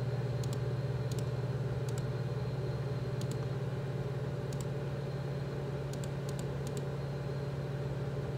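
A computer mouse clicking about eight times at irregular intervals, each click a quick double snap of press and release, over a steady low hum.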